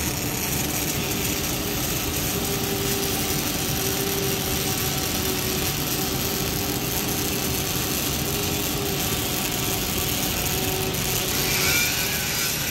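Dual-torch automatic pulsed GMAW welding of a pipe girth joint: the steady crackling hiss of the arcs over a steady hum, getting louder and brighter near the end as a shower of sparks flies.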